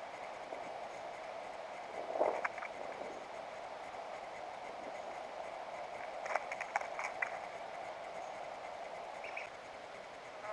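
A Steller's jay moving about a fallen log: a soft flutter of wings about two seconds in, then a cluster of short sharp taps and clicks of the bird on the wood about six to seven seconds in, over a steady background hiss.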